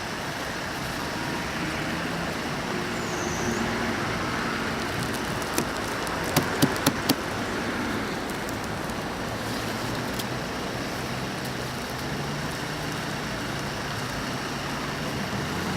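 Steady city traffic noise, car engines and tyres on a snowy street, with a quick run of four sharp clicks or knocks about six to seven seconds in.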